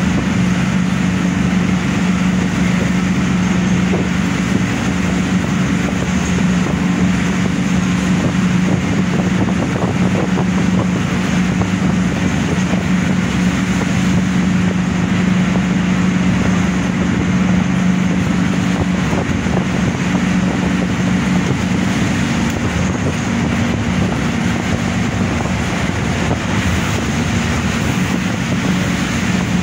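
Steady drone of a moving road vehicle heard from inside the cabin: a constant low engine hum over even road and wind noise.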